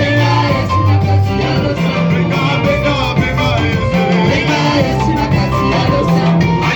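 Live praise music with a steady bass line and singing.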